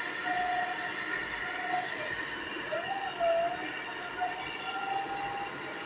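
Bored-piling rig machinery running, a steady mechanical noise. Over it a high squealing tone comes and goes, wavering and sliding in pitch.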